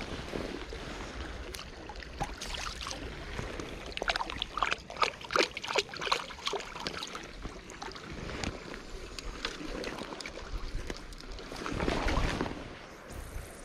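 Shallow river water splashing and sloshing around wading boots at a stony edge, with a dense run of sharp clicks and crunches in the middle from steps on wet gravel and stones.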